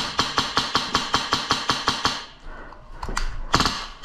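Airsoft rifle firing a rapid full-auto string of shots, about eight a second, which stops about two seconds in; after a short pause come two or three single shots near the end.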